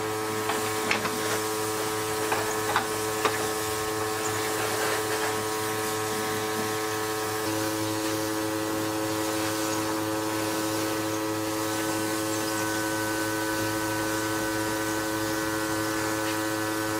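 A steady electric hum, like a small electric motor running, with several held tones. A few light clicks come in the first few seconds, and the tones shift about halfway through.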